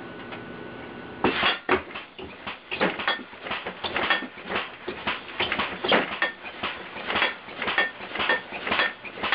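A computer-controlled, compressed-air-powered alarm contraption going off: rapid, irregular metallic clattering and banging, about three or four strikes a second, starting about a second in.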